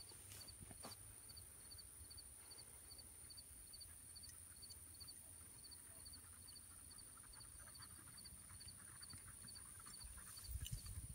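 Near silence in an open field: a faint insect chirp repeating evenly about two and a half times a second over a steady high-pitched hum. A low rumble comes in near the end.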